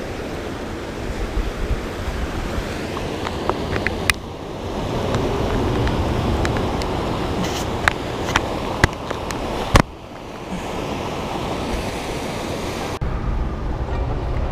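Rushing river water with wind buffeting the microphone, broken by a few sharp clicks, the loudest about ten seconds in.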